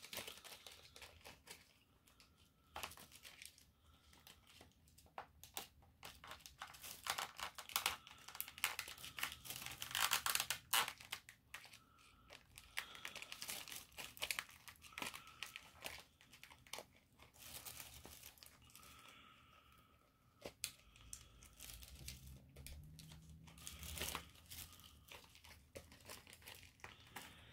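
Plastic packaging crinkling and rustling as it is handled, with scattered small clicks and taps, loudest about eight to eleven seconds in.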